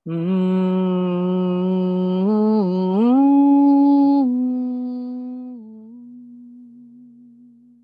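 A woman's voice intoning a long wordless hummed note to open a prayer. It holds a low pitch, wavers briefly past 2 s, rises to a higher held note about 3 s in, then dies away gradually.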